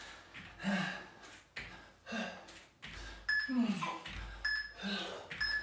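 A man breathing hard in forceful exhales during jump squats, about one every three-quarters of a second. In the last couple of seconds a workout interval timer beeps about once a second, counting down.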